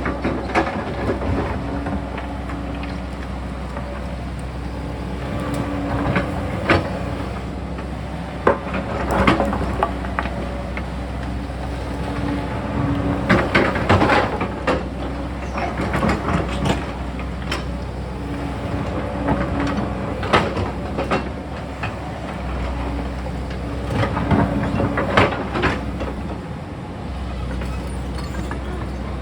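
Sany excavator's diesel engine running steadily while working, with repeated sharp metallic clanks and knocks, heaviest in clusters about a third and halfway through and again near the end.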